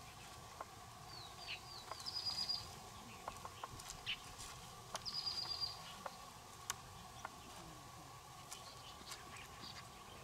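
Small birds chirping outdoors: a quick run of high repeated notes comes twice, about three seconds apart, with scattered short chirps and clicks between, over a faint steady background hum.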